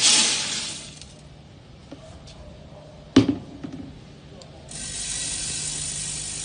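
Granules poured from a bucket into the hopper of a weighing-and-filling machine: a hissing rush that fades within about a second. A sharp click comes about three seconds in. From about five seconds in, a steady hissing rattle follows as granules move through the machine.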